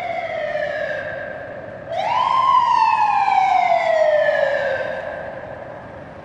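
Police car siren wailing: a falling tone, then a quick rise about two seconds in and a slow fall over the next few seconds, growing fainter near the end.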